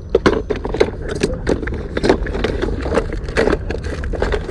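Irregular clicks and scrapes of fishing tackle being handled close to the microphone, over a steady low rumble of wind on the microphone.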